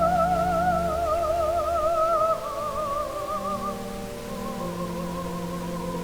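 Music: a solo melody line holding long notes with a wide vibrato and slowly stepping down in pitch, over sustained accompaniment chords with a low bass that drops out about two seconds in.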